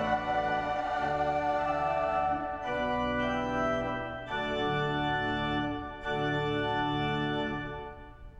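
Women's choir holding a sung chord over pipe organ; from about two and a half seconds in the organ carries on in sustained chords that change every second or two, dipping briefly just before the end.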